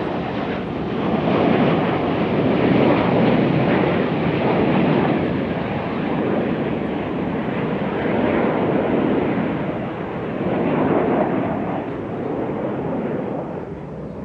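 A formation of BAE Hawk T1 jets passing overhead: the steady rushing roar of their Adour turbofan engines, swelling louder twice and easing off near the end.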